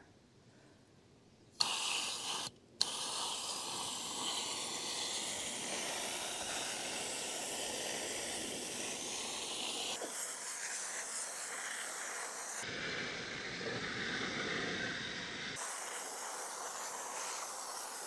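Water hissing from a garden hose spray nozzle as it rinses the fins of an RV rooftop air conditioner's coil. It starts about a second and a half in, breaks off briefly, then runs steadily, changing tone a few times as the spray moves over the coil, and stops suddenly at the end.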